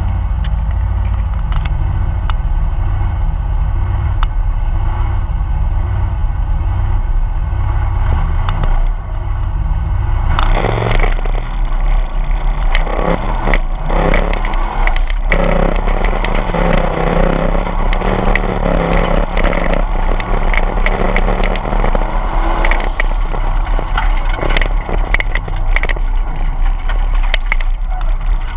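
Chrysler VG Valiant's engine heard from inside the cabin: a steady low idle for about the first ten seconds, then a sudden jump to hard acceleration as the car launches up the hillclimb course, staying loud under load to the end. Scattered sharp clicks and knocks sound through it.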